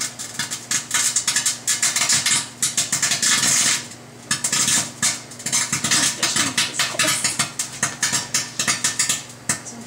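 A CD arcing inside a running microwave oven: dense, irregular crackling and snapping of electrical sparks over the oven's steady hum, with a brief lull about four seconds in.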